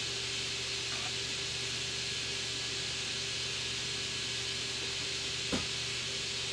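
Desktop PC's cooling fans running steadily, a constant whir and hiss with a low hum, as the machine boots. One short click about five and a half seconds in.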